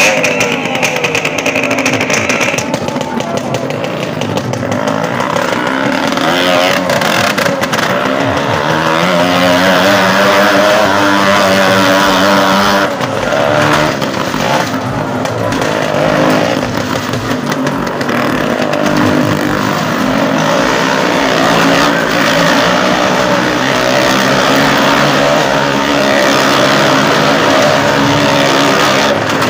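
Motorcycle engines running and revving inside a wooden well-of-death drum, rising in pitch from about eight seconds in as a rider picks up speed to climb the wall, then running hard and steady.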